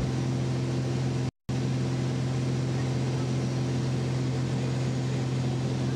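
Steady drone of a light aircraft's engine heard from inside the cabin in flight, an even low hum with overtones. It cuts out completely for a split second about a second and a half in.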